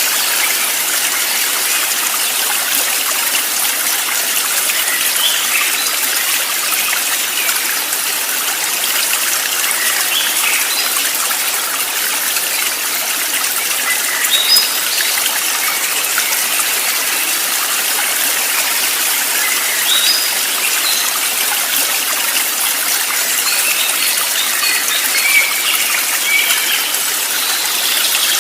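A stream of running water flowing steadily, with a few short bird chirps scattered over it.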